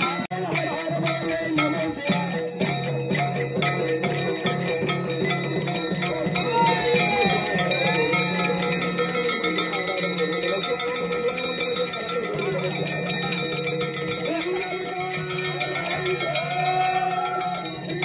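Devotional bhajan music: small brass hand cymbals (taal) clashing in a steady, fast beat, with a barrel drum (pakhawaj) and voices chanting.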